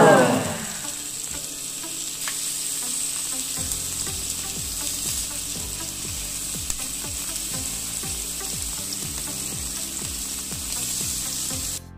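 Beef cubes searing in hot oil in a nonstick pan, a steady sizzle, with tongs moving the meat around the pan. A short, loud downward-sliding tone at the very start.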